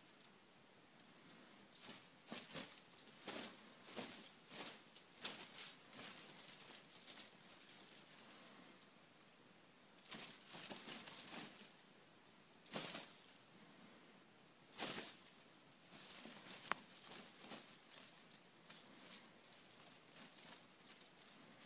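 Faint, irregular rustling of a fabric blanket as a cat rolls and squirms on its back on it, in several separate bursts.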